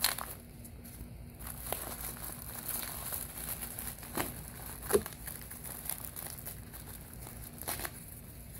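Plastic wrapping crinkling as rockwool grow cubes are handled and pulled apart by hand, with a few light taps, the sharpest about five seconds in.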